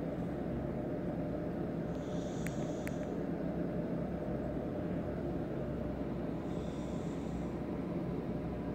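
A sleeping Persian-Turkish cat breathing through its nose, a faint high hiss on a breath twice, about four and a half seconds apart, over a steady low rumble. Two small clicks come during the first breath.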